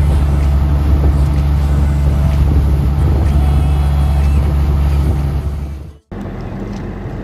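Fishing boat running at speed: a loud, steady low engine drone with the rush of water along the hull. It cuts off abruptly about six seconds in and gives way to a quieter steady hum.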